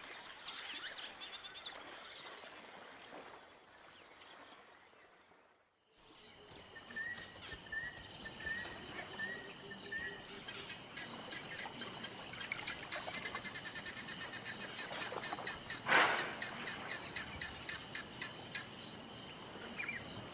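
Bush field ambience: birds calling and chirping, with a run of short repeated chirps and then a fast, high pulsing trill. A brief louder call about two-thirds of the way through is the loudest sound. The ambience dips almost to silence at a cut about six seconds in.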